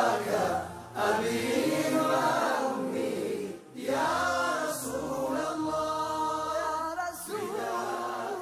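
Group of men singing an Arabic devotional nasheed to the Prophet in unison, unaccompanied, with long melismatic held notes. The singing breaks briefly for breath about a second in and again about three and a half seconds in. Near the end it thins to a wavering held note.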